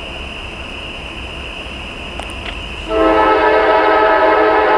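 Norfolk Southern locomotive air horn sounding as the train approaches: a fainter chord at first, then a loud, sustained blast beginning about three seconds in.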